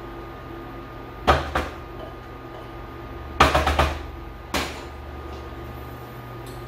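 Knocks of a spatula and a clear mixing bowl as cream cheese is scraped and tapped out into a food processor bowl: two knocks about a second in, a quick run of four or five in the middle, then one more.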